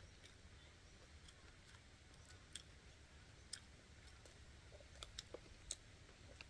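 Near silence with the faint sounds of eating: a scattering of short, sharp clicks from chewing and chopsticks, a few of them clustered about five seconds in.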